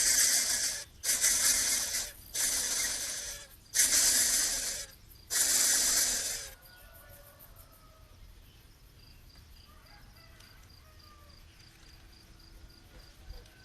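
Coucal chick hissing in a run of loud, harsh hisses about a second long each, with short pauses between them, which stop about six seconds in. Faint crickets chirping afterwards.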